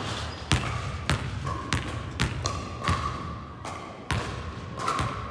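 Basketball bouncing on a sports hall floor, about two bounces a second in an uneven dribbling rhythm.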